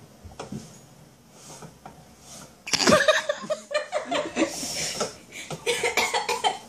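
Soft scraping of a spoon stirring a pot, then about three seconds in a woman laughs, loud and broken into short bursts, until near the end.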